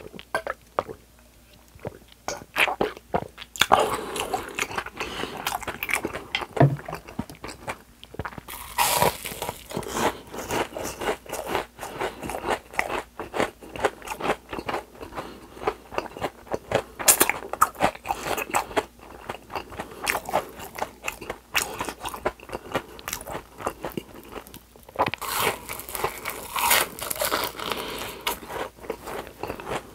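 Close-miked crunching and chewing of a panko-breaded deep-fried piece, bite after bite, its crisp crust crackling loudly. The first few seconds are quieter, with only scattered clicks.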